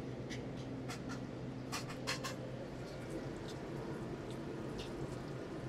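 Mushrooms frying in oil in a pan over a gas burner: a quiet sizzle with scattered small crackles, the busiest cluster about two seconds in, over a steady low hum.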